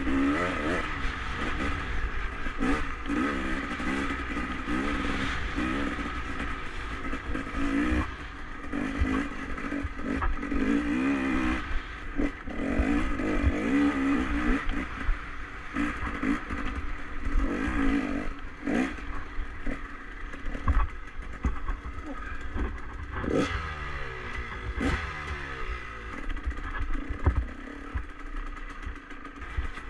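Enduro motorcycle engine ridden on and off the throttle, the revs rising and falling constantly, with clatter and knocks as the bike goes over bumps. A little past two-thirds through, the revs drop away in a few falling glides.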